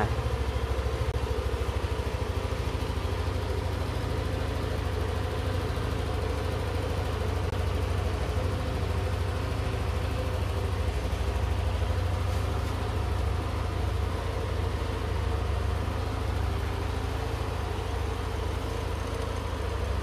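Yamaha Aerox 155 scooter's single-cylinder engine idling steadily.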